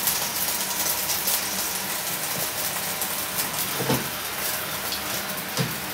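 Steady hiss of a pot of dumplings boiling on a lit gas burner, with soft knocks about four and five and a half seconds in as a wooden spoon stirs the pot.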